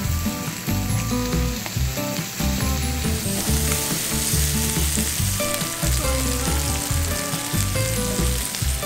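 Jeju black pork sizzling steadily on a hot round griddle plate, with background music underneath.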